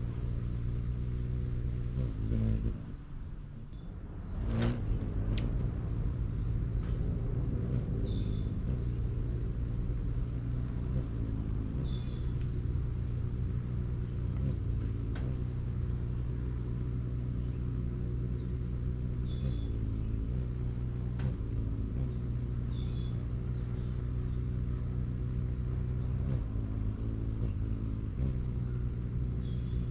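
Wings of hummingbirds hovering at a feeder, a low steady hum whose pitch shifts every few seconds as birds come and go, with a short gap about three seconds in. Short high chip calls sound about five times.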